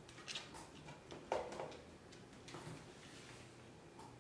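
Faint handling noises: a few light taps and knocks, the clearest about a second in, as a wooden board is held and positioned against a wall.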